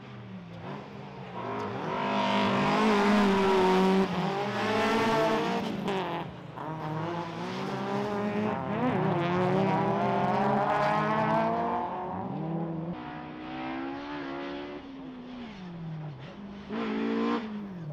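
Rallycross cars' engines revving hard as they pass, pitch climbing through each gear and dropping sharply at the upshifts several times, loudest in the middle.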